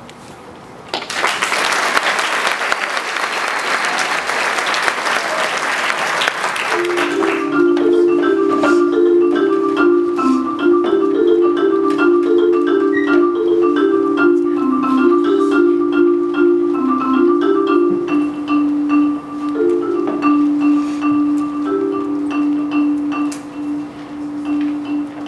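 DeMorrow 4.3 Studio marimba played with mallets. It opens with about six seconds of dense hissing, clicking noise, then plays a quick repeating figure of notes that settles into one long rolled low note, growing softer near the end.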